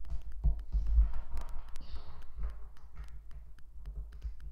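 Lego bricks clicking as they are handled and snapped together: irregular small sharp clicks, with a couple of dull knocks in the first second.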